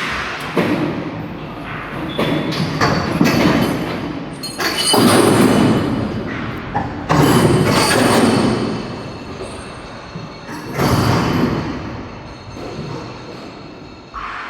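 A series of heavy thuds and rumbling crashes, about half a dozen, each starting suddenly and dying away over a second or two.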